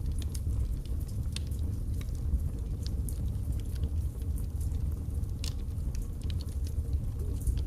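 Birch logs burning in a fireplace: a steady low rumble of flame under scattered sharp crackles and pops, with a few louder snaps among them.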